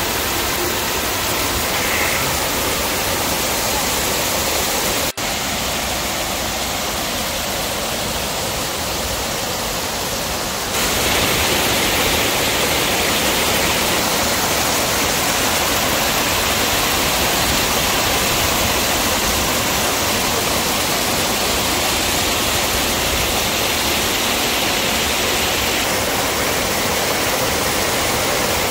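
Water of a mountain stream rushing steadily down small cascades over mossy boulders. There is a momentary dropout about five seconds in, and the rush gets louder at about eleven seconds.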